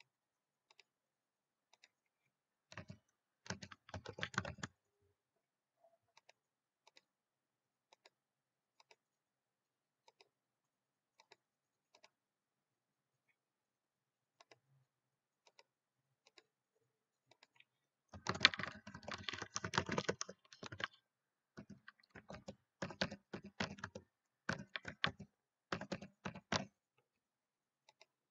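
Computer keyboard typing in quick bursts of keystrokes, with scattered single clicks in between. A short burst comes a few seconds in, sparse clicks follow about once a second, and the longest run of typing starts about two-thirds of the way through, followed by two shorter bursts.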